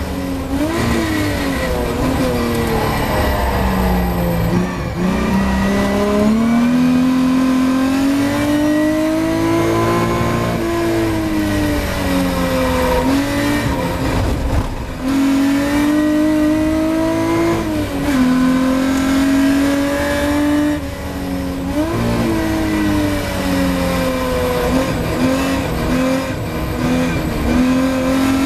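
Ford Capri V6 race car's engine heard from inside the cabin under racing load. The engine note climbs steadily, then falls away or drops sharply several times as the car brakes and changes gear through the corners.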